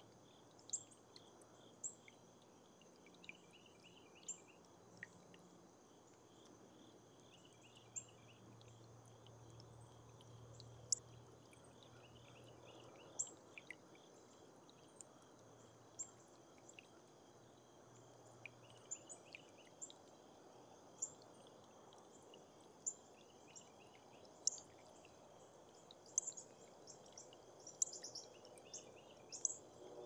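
Squirrel chewing and cracking seeds and peanut shells: sharp, irregular crunching clicks, about one or two a second, with more of them near the end. Faint chirping runs in the background.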